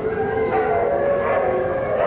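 Several Siberian huskies howling at once: long, overlapping howls that slide slowly in pitch.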